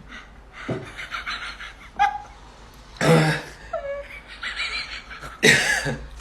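Laughter and giggling in short bursts, with louder outbursts about three seconds in and near the end.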